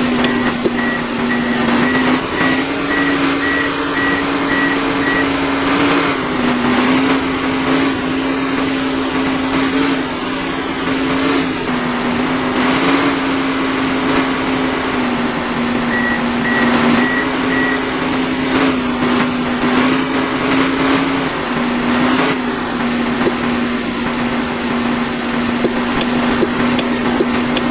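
A machine's motor running steadily with a constant humming pitch that steps slightly up and down, joined at the start and again around the middle by a quick series of electronic beeps like a reversing alarm.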